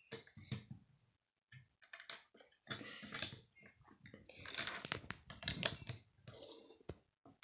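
Plastic Lego bricks clicking and clattering as they are handled and pressed together on a wooden tabletop: irregular small clicks and short rattles, busiest in the middle of the stretch.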